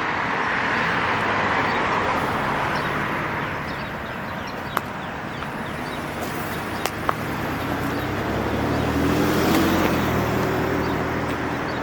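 Road traffic: passing cars, their tyre noise swelling near the start and again near the end, when an engine note comes through. Two brief clicks in between.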